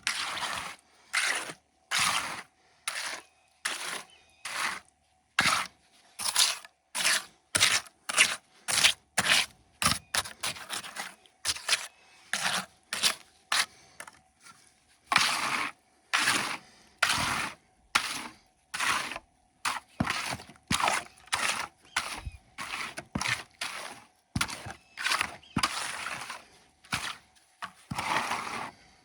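Repeated scraping strokes of a tool working wet concrete, about one or two a second with short pauses between.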